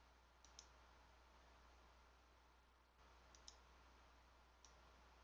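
A few faint computer mouse clicks over near silence: two quick pairs and a single click.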